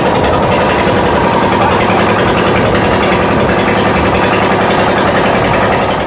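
Boat engine running steadily under way, loud and close, with a rapid even pulse.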